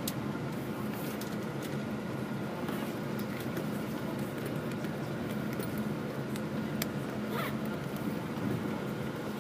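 Bus engine and road noise heard inside the cabin: a steady drone with scattered short rattles and clicks.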